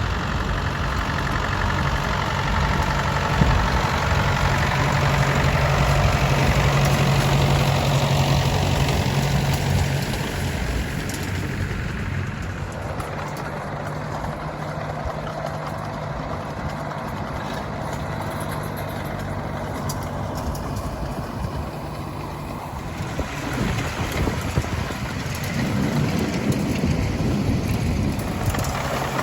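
Classic Ford farm tractor's diesel engine running at steady working revs, louder for the first ten seconds or so, then quieter, and rising again near the end.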